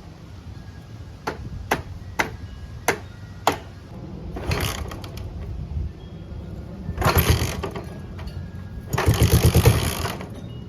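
A few sharp clicks, then the Honda CJ360 motorcycle engine cranked over in three short bursts, the last and longest about a second long.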